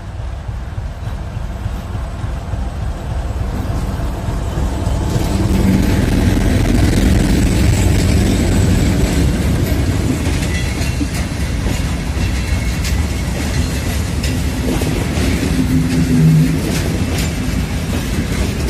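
T458-1509 diesel locomotive approaching and running past, growing louder over the first six seconds or so, followed by a long train of loaded fuel tank wagons rolling by with the clatter of wheels over the rail joints.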